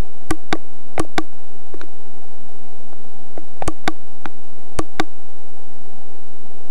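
A steady buzzing hum, with four pairs of sharp clicks, each pair about a fifth of a second apart. The clicks fit a small RD31 camera's button being pressed and released as its built-in LEDs are switched off and on.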